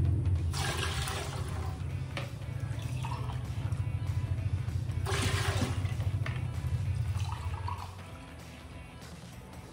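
Rice-washing water poured from a plastic pitcher into a mug and mugfuls tipped into a metal cooking pot, with two louder splashes, about half a second in and about five seconds in.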